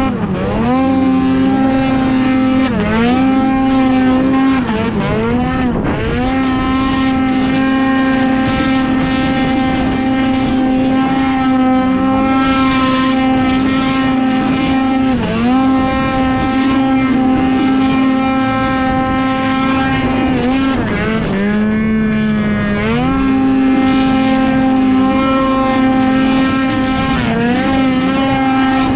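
Arctic Cat Catalyst snowmobile engine at wide open throttle, held at one steady high pitch as its CVT clutching, here a Speedwerx clutch setup, holds the revs. Six or so times the pitch briefly dips on a throttle lift and climbs straight back.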